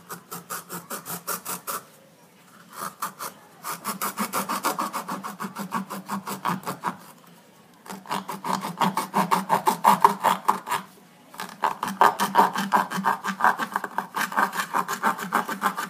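A knife blade sawing back and forth through a tennis ball's felt cover and rubber shell, a rapid rasping of several strokes a second. The strokes come in bouts with a few brief pauses.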